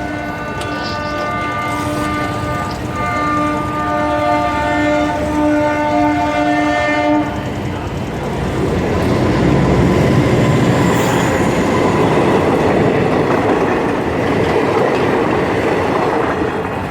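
A train's horn sounds one long chord for about seven seconds and cuts off, then the train passes through the crossing with a loud, steady rush of noise.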